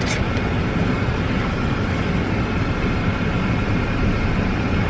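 Steady noise inside a car: a low hum with an even rush over it.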